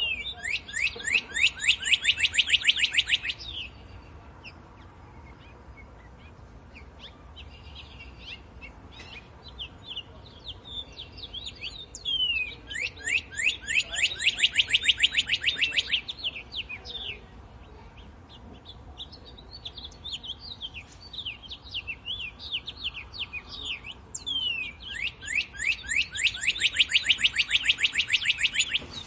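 Songbird singing: a loud phrase of rapid, repeated falling notes lasting a few seconds, given three times about twelve seconds apart, with fainter chirps from other birds in between.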